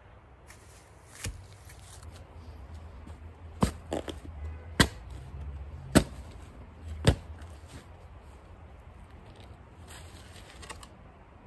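Long-handled shovel digging into soil and turf, with a handful of sharp chops as the blade strikes the ground, the loudest about four, five, six and seven seconds in.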